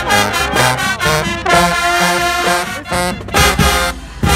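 High school marching band playing loud and full: brass horns, sousaphones among them, over repeated drum hits.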